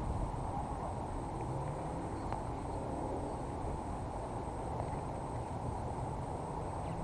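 Steady low outdoor background rumble with no distinct events, and a faint steady high-pitched tone above it.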